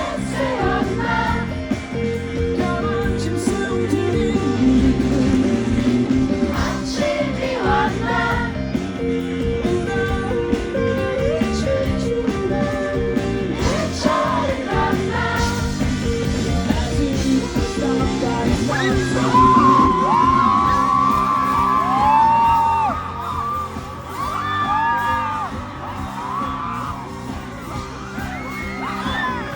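Live rock band playing a song, with a sung lead vocal over guitars, bass and drums. The sound eases off in loudness about three-quarters of the way through.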